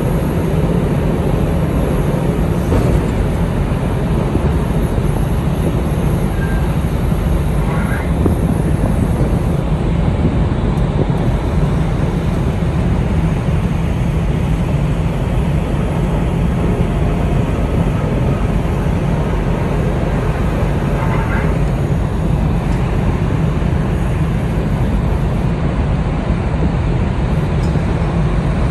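Steady low drone of the ferry's engines and on-board machinery, unchanging in level throughout.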